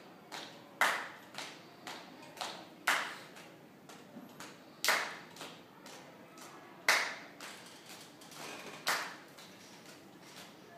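Body percussion in a steady rhythm: a sharp, loud hit every two seconds with quieter taps in between, each echoing briefly.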